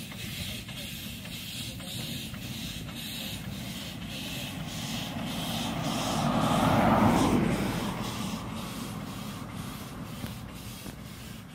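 1916 Decauville narrow-gauge steam locomotive chuffing with an even beat, roughly three exhaust beats a second. A car passes along the road, swelling to the loudest sound about seven seconds in and then fading.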